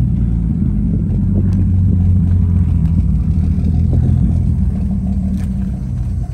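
1949 Crown Supercoach school bus's International 501 Red Diamond straight-six gasoline engine running steadily with a low, even rumble.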